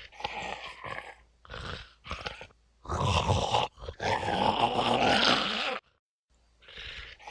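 Zombie eating sound effect: a creature's growling and gnawing in a few short bursts, then two longer, louder stretches, a brief gap, and the same sequence starting again near the end.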